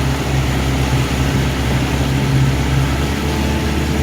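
Twin 60 hp Mercury Command Thrust four-stroke outboards running steadily at low speed, with a steady low hum under a haze of water and wind noise.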